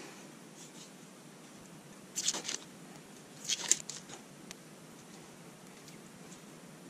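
Protective paper masking being peeled off laser-cut acrylic parts: two short tearing rustles, about two and three and a half seconds in, with a few faint clicks.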